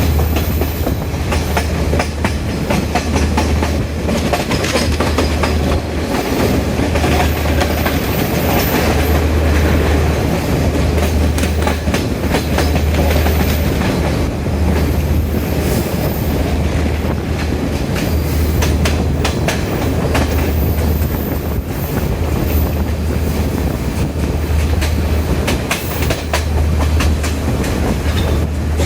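Diesel multiple-unit express train running along the line, its wheels clicking over rail joints over a steady low rumble.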